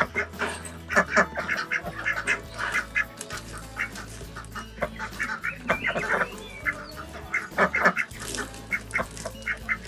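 Backyard hens clucking, many short calls in quick irregular succession.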